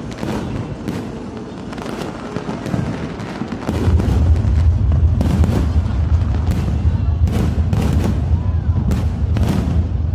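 Fireworks going off in quick succession, a string of sharp bangs, with a deep continuous rumble setting in about four seconds in as the barrage gets heavier.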